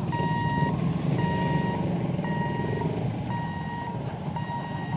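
Level crossing barrier warning beeper sounding a steady electronic beep about once a second, each beep about half a second long, as the boom barrier lifts. Underneath runs the low hum of waiting motorcycle and rickshaw engines.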